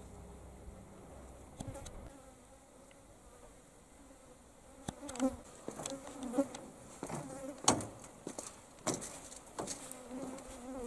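Flies buzzing close around the microphone, swelling and fading as they pass. From about halfway, footsteps knock on a grated walkway, roughly one step every half to one second.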